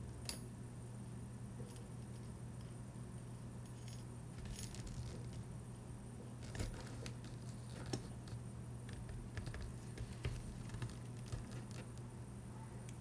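Scattered small metallic clicks and taps of brass tweezers and a tiny watch balance wheel against the steel plate of a staking tool, over a steady low hum.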